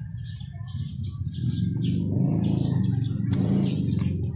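Small birds chirping over and over, with a steady low rumble underneath that swells about two seconds in. Two sharp clicks come near the end.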